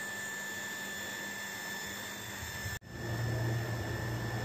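Steady electric hum of the pool's circulation pump running, which feeds water through a wood-fired heater coil. The sound cuts out abruptly about three seconds in and returns louder, with a deeper steady hum.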